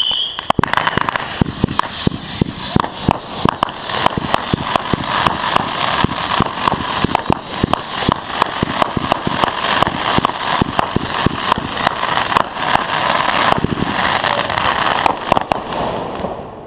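Fireworks going off in a rapid, unbroken string of cracks and pops for about sixteen seconds, with a faint high whistle running through the middle, thinning out just before the end.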